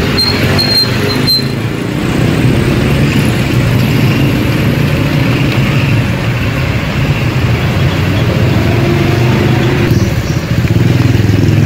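Engines of motor vehicles stopped or creeping in traffic, a loud steady low engine drone close by. A thin high squeal sounds briefly at the start and stops about a second in.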